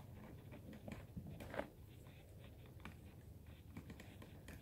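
Faint handling noises from a resin ball-jointed doll being worked on by hand: soft rustling with a few light clicks, the sharpest about a second and a half in.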